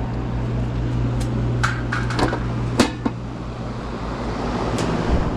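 Heat-pump package unit running with a steady low electrical hum and air noise. A handful of sharp clicks and knocks sound over it, from panels or tools being handled.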